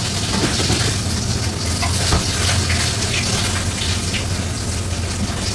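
Water running steadily from a kitchen tap into the sink, a continuous gush over a low steady hum, with a couple of faint clicks about two seconds in.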